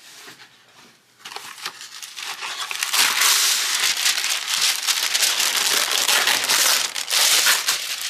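Wax paper being handled and crinkling, starting softly about a second in and becoming a dense, continuous crinkle from about three seconds on.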